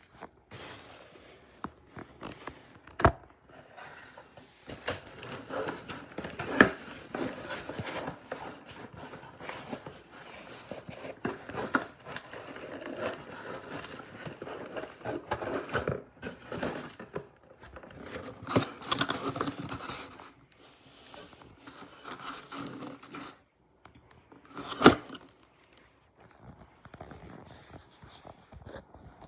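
Handling noises: irregular scraping and rustling, broken by a few sharp clicks or knocks, the loudest one late on.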